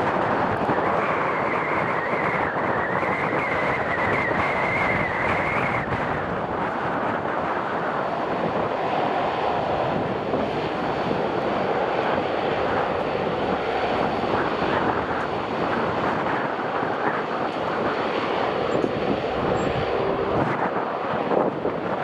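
Twin Pratt & Whitney PW150A turboprops of a Bombardier Dash 8 Q400 running steadily on the runway, a continuous dense propeller and engine noise. A thin high whine comes in about a second in, rises slightly, and stops about six seconds in.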